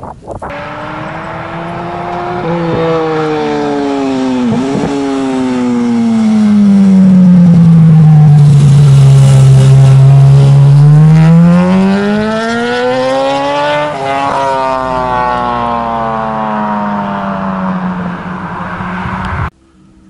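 Sport motorcycle passing close, its engine note falling with two quick gear changes as it slows into a bend. It is loudest at low revs as it goes by, then revs up as it accelerates away, changes gear once and fades. The sound cuts off suddenly near the end.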